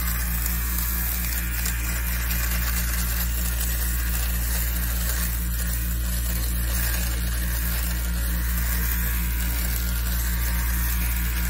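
Small electric motor of a handheld cleaning device running steadily as it is pushed over a rug, a constant low hum with a hiss on top.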